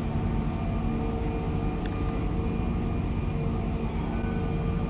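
Steady drone of distant heavy diesel machinery at the port, several held tones over a low rumble.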